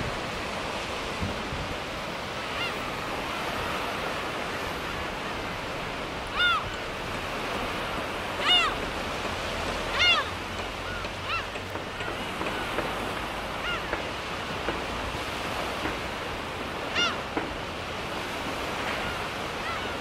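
Low surf washing on a sandy beach, with gulls calling over it: short, arched cries, the loudest about six and a half, eight and a half and ten seconds in, and fainter ones later.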